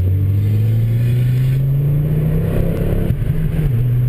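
Car engine heard from inside the cabin, pulling steadily with its pitch slowly rising, then dropping lower and holding steady about three and a half seconds in.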